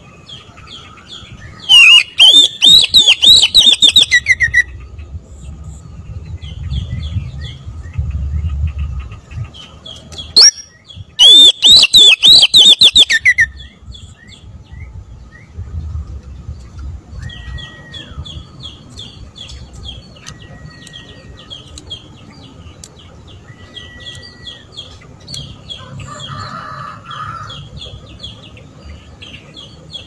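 Oriental magpie-robin (kacer) singing hard: two loud bursts of fast repeated notes, each about two seconds long and loud enough to hit the recording's limit, then softer rapid chattering notes with a few short level whistles. A low wind rumble runs underneath.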